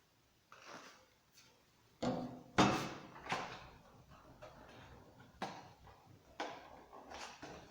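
Handling noises as the chainsaw and its packaging are unpacked: a string of knocks and rustles, the loudest about two and a half seconds in.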